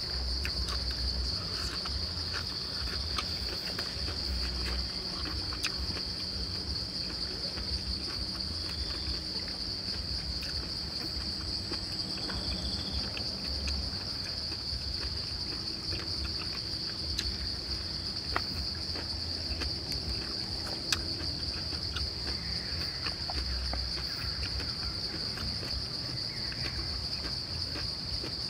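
Steady, high-pitched insect drone running without a break, with a few small faint clicks scattered through it.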